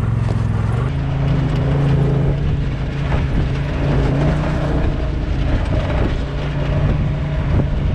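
UTV engine running under way on a rough trail, its pitch shifting a little with the throttle, with scattered knocks from the machine.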